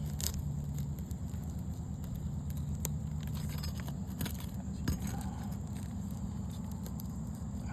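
Scattered light clicks, taps and scrapes of hands and a roofing tool working at a sealed-down asphalt shingle, over a steady low hum.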